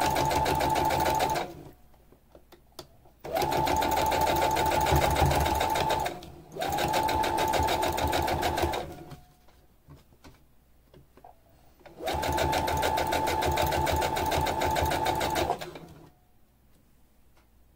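Brother SC9500 sewing machine stitching through layers of faux fur in four runs of a few seconds each, stopping briefly between them. Its motor runs with a steady whine under fast, even needle ticking.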